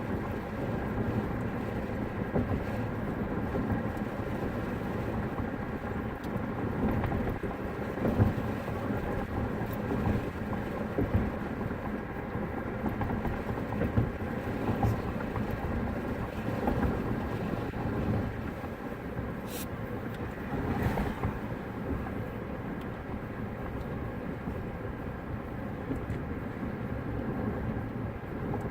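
Steady car road and engine noise heard from inside the cabin while driving, with a single sharp click about twenty seconds in.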